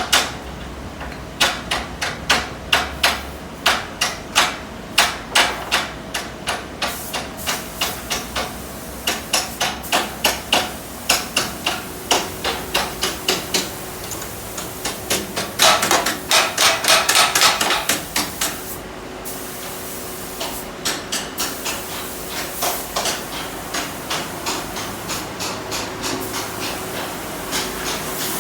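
Hammer striking the steel of a truck bed's side gate in quick runs of about three blows a second, with short pauses. A denser, louder run of rapid blows comes about sixteen seconds in.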